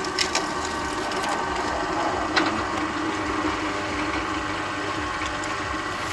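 Motor-driven sugarcane juicer running steadily while its rollers crush and squeeze a stalk of sugarcane, with a few sharp cracks from the pressed cane, the loudest about two and a half seconds in.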